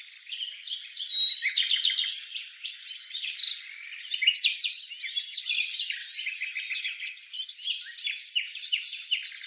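A bird singing a fast, varied run of chirps, short trills and whistled notes, busiest from about a second and a half in.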